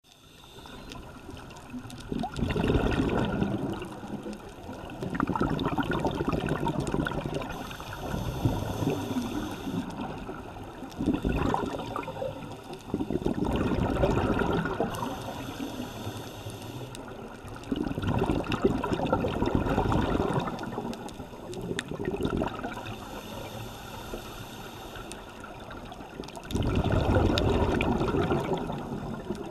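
Scuba diver's regulator breathing heard underwater: a loud rush of exhaled bubbles about every three to four seconds, with a quieter stretch between breaths.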